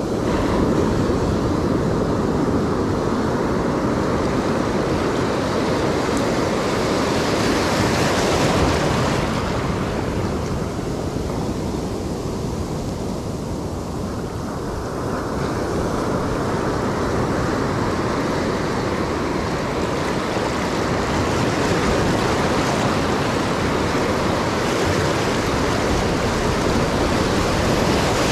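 Ocean surf breaking and washing in and out around the feet in shallow whitewater, with wind on the microphone. The wash surges about a third of the way in, eases for a few seconds, then builds again toward the end.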